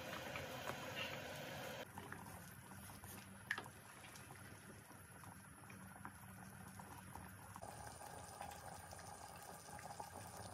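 Thick nihari gravy simmering and bubbling in a stainless steel pot, with a wooden spoon stirring through it. A single sharp knock about three and a half seconds in.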